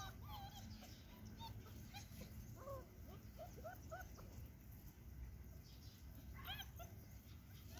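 Young Great Dane puppies whimpering and squeaking faintly: short, scattered high cries that rise and fall in pitch, several a second at times.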